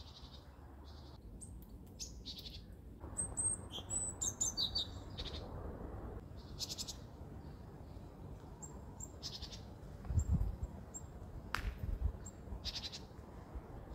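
Small birds chirping and calling: scattered short, high chirps and whistled notes, some overlapping, over a steady low background noise. A brief low rumble comes about ten seconds in.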